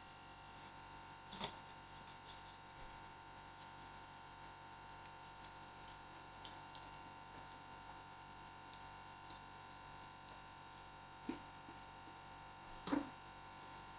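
Quiet room hum with a few soft knocks, one about a second and a half in and two near the end, as sticky dough is tipped out of a stainless steel mixing bowl into a metal baking tray.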